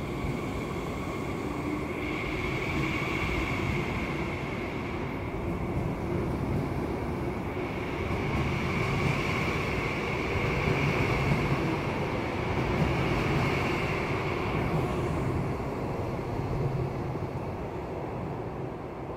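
CRH high-speed train running past a station platform: a steady rumble of wheels on rails with a high, steady whine that comes and goes. The sound grows through the middle and eases off near the end as the train clears the platform.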